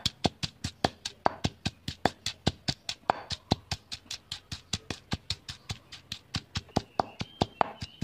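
Stone pestle pounding steadily in a granite mortar, a rapid even run of sharp knocks, several a second, as garlic and bird's-eye chilies are crushed to a paste.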